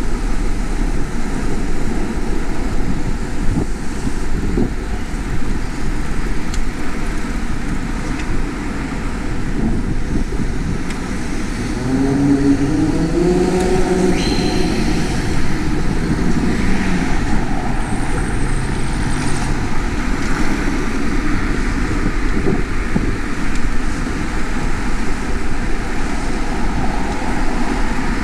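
Street traffic heard from a moving bicycle: a steady rumble of air and road noise, with a motor vehicle passing about halfway through, its engine note rising and then falling.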